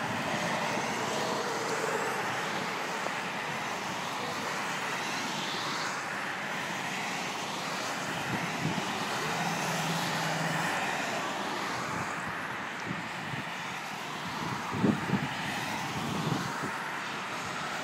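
An aircraft flying past: steady engine noise whose tone slowly shifts as it goes by, with a couple of short low bumps about fifteen seconds in.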